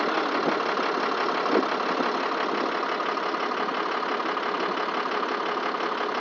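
A truck engine idling steadily, heard from inside the tow truck's cab, with an even, fast pulse and no change in pitch.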